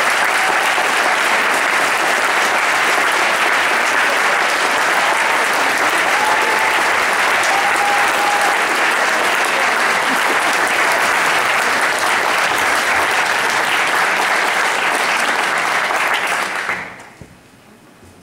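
Audience applauding steadily for a winner, dying away about a second before the end.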